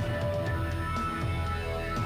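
Instrumental soundtrack music over the end credits, with held notes over a steady low pulse.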